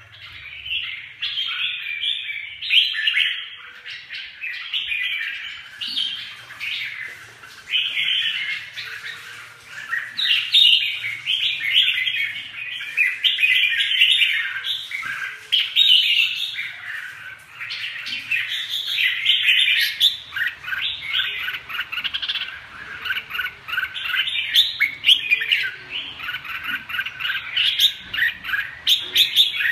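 Caged red-whiskered bulbuls singing: a busy, near-continuous run of quick chirping, warbling phrases with only brief gaps.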